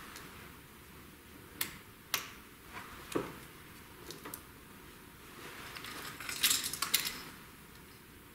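Small plastic clicks and rattles of an engine wiring harness being handled and its connectors clipped onto the fuel injectors: a few single sharp clicks, then a quick cluster of clattering clicks about six to seven seconds in.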